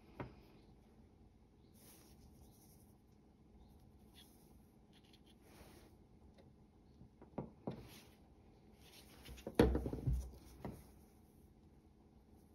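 Brush rubbing fresh grease onto the metal parts of a pair of Gardena secateurs, in soft scratchy strokes. A few light clicks of small metal parts, and a louder knock of parts being handled late on.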